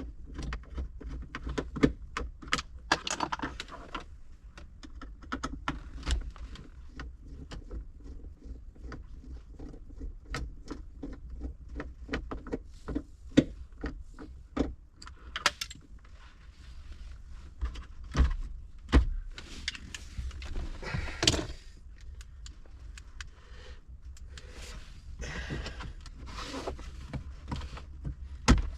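Hand tools and plastic interior trim being handled: a long run of scattered clicks, taps and rattles over a steady low hum.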